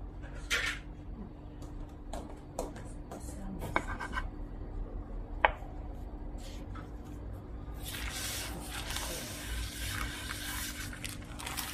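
A few light clicks and knocks, then from about eight seconds in a plastic-gloved hand rubbing flour across a wooden board for about three seconds.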